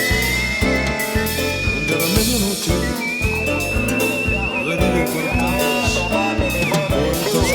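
Music with a steady drum beat and a high, long-held melody line that slides up into its notes.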